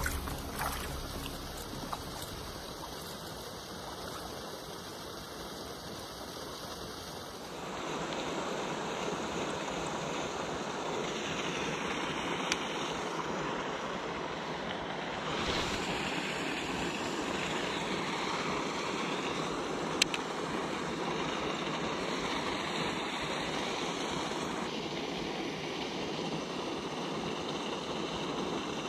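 Steady rush of flowing river water with some wind, its level stepping up or down abruptly a few times. One sharp click stands out about two-thirds of the way through.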